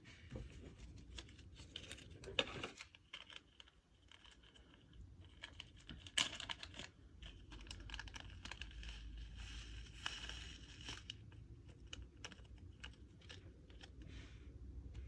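Hands kneading and stretching a thick slime while a piece of clay is mixed in, giving quick sticky clicks and crackles, with a couple of louder pops.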